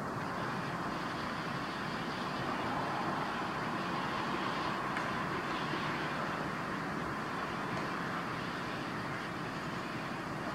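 Steady outdoor background noise: an even hiss and rumble with no distinct events, of the kind distant road traffic makes.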